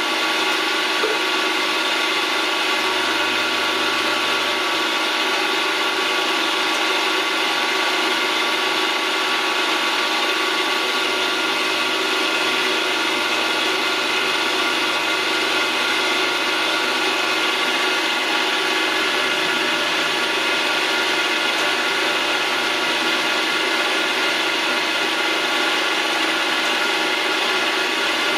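Milling machine running steadily, its spindle cutter machining a small mixture screw held in the chuck. The machine gives an even, unchanging mechanical whine.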